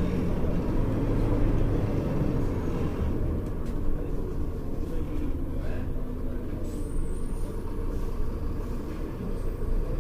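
Diesel engine of a Mercedes-Benz O-500U city bus with a ZF Ecomat automatic transmission, running as a steady low drone.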